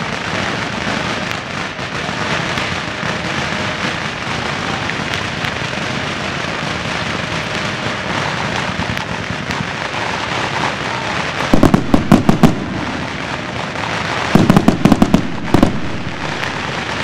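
Fireworks and firecrackers going off in a dense, continuous crackle. Twice, about two-thirds of the way in and again near the end, there is a cluster of much louder rapid bangs.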